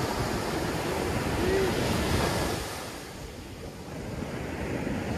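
Ocean surf breaking and washing up a sandy beach, with wind buffeting the microphone. The wash is loudest in the first half, falls away about three seconds in, then starts building again.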